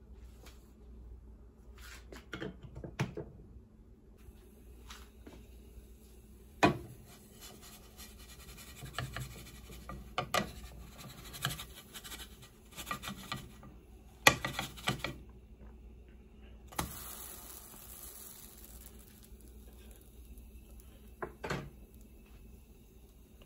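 Wooden spatula scraping and knocking against a nonstick frying pan as a pancake is loosened and flipped, with a few sharp knocks, the loudest about two-thirds of the way through.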